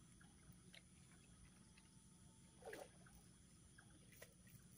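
Near silence: faint steady low background hum with a few faint ticks, a brief soft sound about two and a half seconds in, and a faint click near the end.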